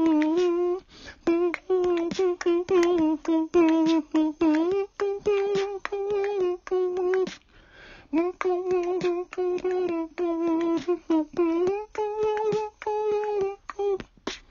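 A woman humming a tune in held notes, the sound breaking off abruptly several times.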